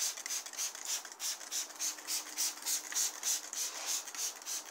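Plastic spray bottle squirting water onto a towel to dampen it, in a quick even series of short sprays, about three a second.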